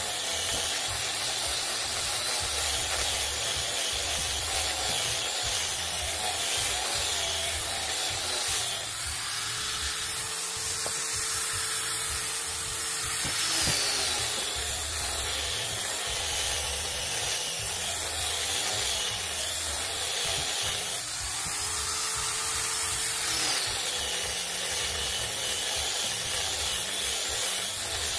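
Handheld angle grinder fitted with a sanding disc, running steadily as it sands the curved edge of a wooden board: a continuous hiss of abrasive on wood over the motor's whine. The motor's tone comes through more clearly twice.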